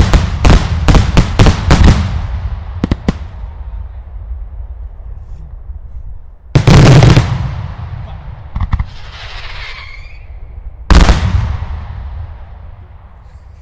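Daylight fireworks going off: a rapid volley of loud bangs, about four a second, for the first two seconds, then two heavy single blasts about six and a half and eleven seconds in, each rumbling away. There is a short crackle between the two blasts.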